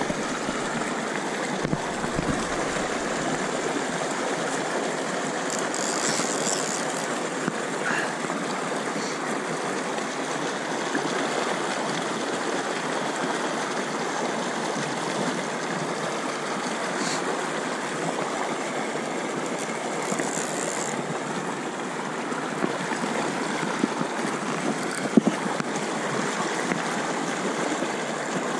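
Steady rush of a mountain river flowing fast over boulders and through a riffle.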